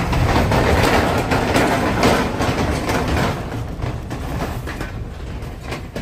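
Mahindra Bolero Camper pickup driving over a rough mountain road, a steady rumble with scattered rattling knocks. It grows somewhat quieter in the second half.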